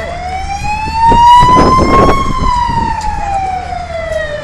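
Emergency vehicle siren wailing: one slow sweep that rises in pitch for about two seconds, then falls again. A burst of loud rushing noise comes about a second in and is the loudest part.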